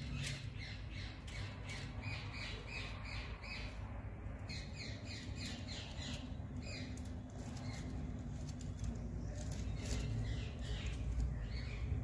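Pigeon squabs in the nest squeaking in rapid runs of short high calls, about four or five a second, in three bouts with short pauses between. A steady low rumble lies underneath.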